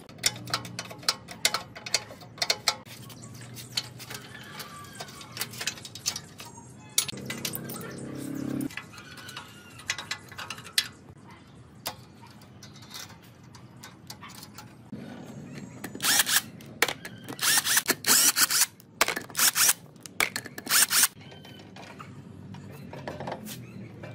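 Hand wrench working rusty bolts on a steel tricycle-truck chassis: scattered metal clicks and clanks, with a dense run of rapid clicking about two-thirds of the way through. A short low hum is heard about seven seconds in.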